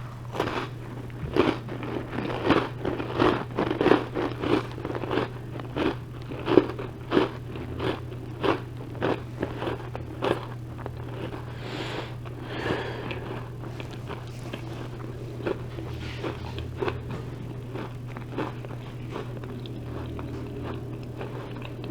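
Close-up crunching and chewing of a crisp Chips Ahoy chocolate chip cookie: a string of short crunches, frequent in the first half and sparser later on.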